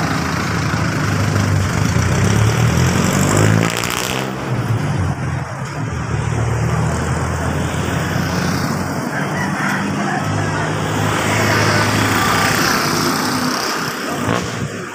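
Road traffic going by close: cars and motorbikes passing on a narrow road, a continuous rumble and tyre noise with louder swells as individual vehicles go past.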